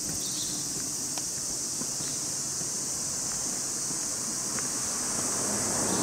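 Summer outdoor ambience dominated by a steady, high-pitched insect drone, with a few faint ticks. A low rumble grows near the end.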